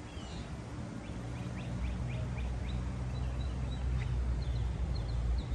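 Birds chirping with many short, quick calls over a steady low rumble.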